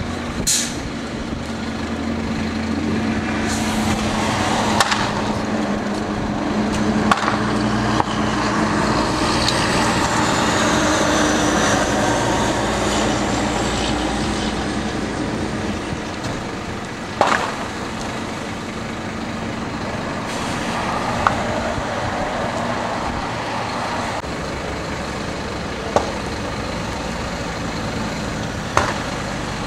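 Fire engine's diesel engine running steadily at the scene of a truck fire, with sharp pops and cracks from the burning truck every few seconds, the loudest about five and seventeen seconds in.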